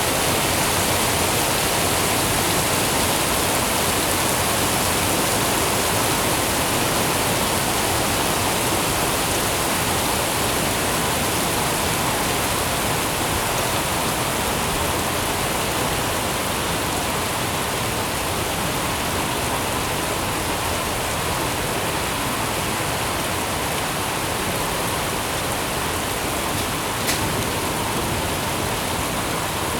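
Steady, heavy rain falling: a dense, even hiss with no let-up. A single faint tick near the end.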